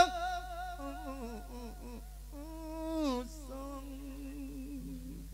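A monk's amplified voice singing a drawn-out, wordless phrase of an Isan lae (melodic chanted sermon). It holds long notes with wide vibrato, swells into a louder phrase that slides down in pitch about three seconds in, then trails off on a soft held note.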